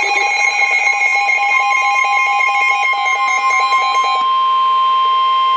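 NOAA Weather Radio warning alarm tone, a loud steady electronic tone of about 1 kHz, sounding before a National Weather Service warning is read. For the first four seconds or so a fast, pulsing electronic alarm of several pitches beeps over it; then the pulsing stops and the steady tone carries on alone.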